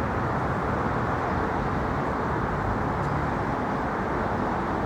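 Steady city street noise: a constant rumble of traffic with a low hum.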